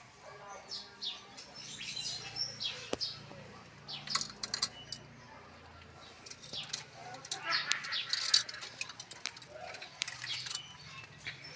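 Birds chirping in many short, high calls, with occasional wing flapping and a sharp click about three seconds in.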